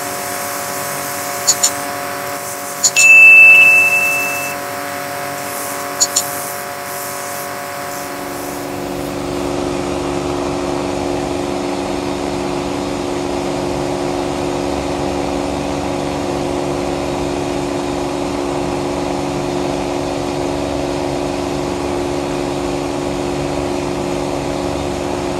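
Electric motor of a bench grinder with an abrasive wheel running with a steady hum, which deepens and grows a little louder partway through. About three seconds in there is a loud, high-pitched squeal lasting a second or so, with a few sharp clicks around it.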